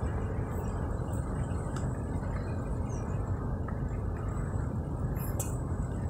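Steady low rumbling noise with a couple of faint clicks.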